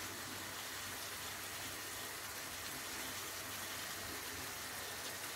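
Minced meat frying in a pan: a quiet, steady sizzle.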